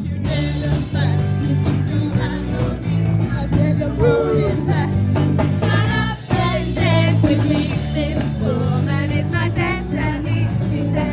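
Upbeat rock-style band music with a singing voice over a steady low bass line.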